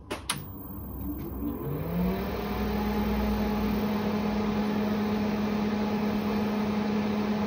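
A click as the power is switched on, then the industrial AC cooling fan fitted in a 1976 Wang 2200F mini-computer spins up with a rising whine and settles into a steady whir and hum, there to cool the computer's hot TTL chips.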